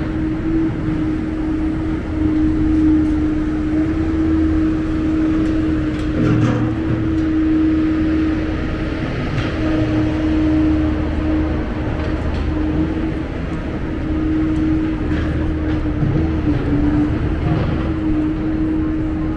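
City street traffic with a loud, steady mechanical hum throughout, like a large idling engine or machine, over low rumble and a few faint knocks.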